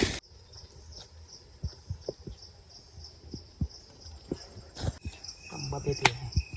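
Insects chirping in a steady pulsing rhythm, about three chirps a second, with a second higher steady trill joining near the end, over scattered dull low knocks.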